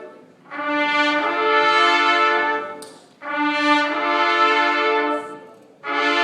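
Marching band brass section playing long, loud held chords, each about two and a half seconds, with a short break between them; a third chord starts near the end.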